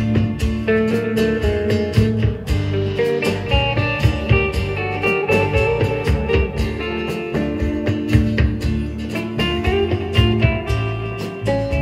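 Live rautalanka band playing: a twangy electric-guitar melody over electric bass, rhythm guitar and a steady drum beat.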